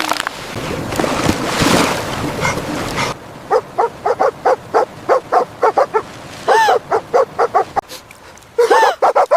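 Puppies yelping and whimpering in quick short cries, several a second, with a couple of longer rising-and-falling whines near the middle and end. For the first three seconds a loud rustling noise covers them.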